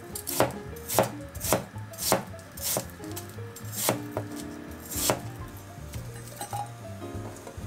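Kitchen knife chopping on a cutting board, one stroke about every half second for the first five seconds, then a few lighter taps.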